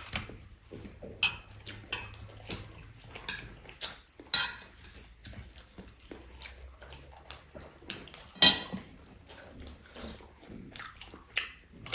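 Cutlery and dishes clinking during a meal: irregular light clicks and taps, with one sharper, louder clink about eight and a half seconds in.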